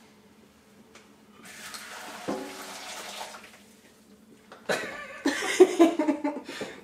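Water running and splashing into a kitchen sink, with metal cookware knocking against it. It comes first in a short spell with one knock, then louder with more clatter from just under five seconds in.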